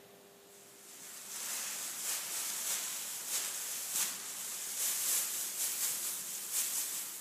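Shredded paper strips rustling and crinkling as hands dig through and toss a heap of them, an irregular rustle that starts about a second in.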